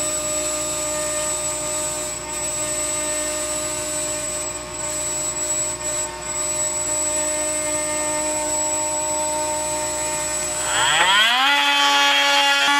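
Stepcraft M1000 CNC router running steadily as it mills sheet-goods parts, a constant machine hum with a steady whine. About eleven seconds in it gives way to a handheld cordless power tool spinning up with a rising whine to a louder steady high pitch.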